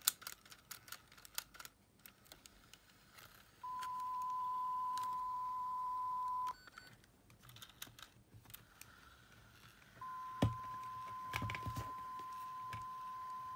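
A steady 1 kHz test tone played back from a cassette in a Sony Walkman WM-FX483, used to check the tape speed on the flipped side: it comes in about three and a half seconds in, breaks off about three seconds later, and returns about ten seconds in. Small clicks from the player's buttons and tape mechanism come before and between. The tone reads close to 1000 Hz, showing the speed is now right.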